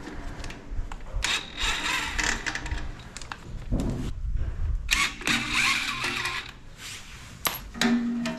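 Cordless impact driver hammering in two bursts, the first about two seconds long and the second about a second and a half, loosening the two bolts that free the rear brake shoes.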